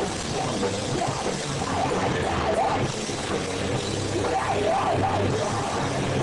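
Live rock band playing: electric guitar and a full drum kit with cymbals, loud and continuous.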